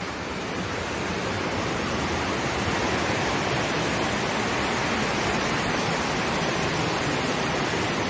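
Fukiware Falls, a wide curtain waterfall pouring over a rock ledge into a cleft in the riverbed, making a steady, unbroken rushing noise at close range.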